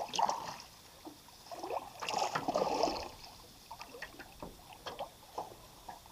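Feet wading through shallow lake water at the shore, in a few irregular splashes and sloshes. The biggest come about two seconds in, followed by smaller drips and ticks.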